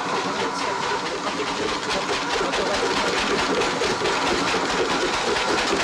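A train passing close by: a steady loud rumble with a rhythmic clatter of wheels over the rail joints, drowning out everything else.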